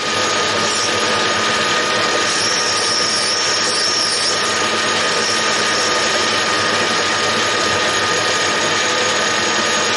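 Metal lathe running with its chuck spinning and the tool cutting a small recess in the workpiece: a steady mechanical whir with a constant hum-like tone, and a faint higher whine for a couple of seconds around the middle.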